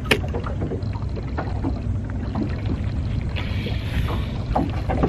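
Boat ambience: a steady low rumble with scattered light clicks and a sharp click just after the start. A brief hiss comes in about three and a half seconds in.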